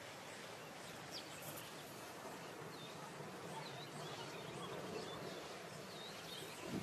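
Faint steady outdoor noise, a low even rush, with a few short high bird chirps scattered through it.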